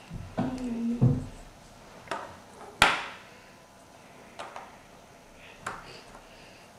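Plastic LEGO bricks clicking and knocking against each other and the wooden tabletop as they are handled and pressed onto a green LEGO frame: a handful of sharp clicks, the loudest about three seconds in. A brief low hum sounds near the start.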